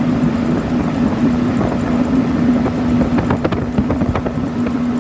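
Motorboat engine running at a steady speed, with wind buffeting the microphone. A few sharp knocks come through in the second half.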